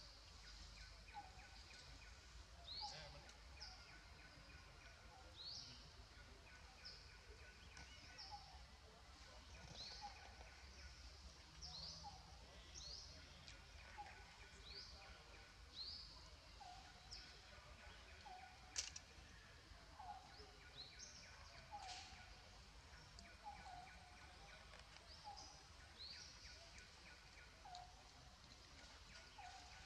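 Faint, repeated short rising chirps, one every second or so, from a calling animal, over low background noise. A couple of sharp clicks cut in about two-thirds of the way through.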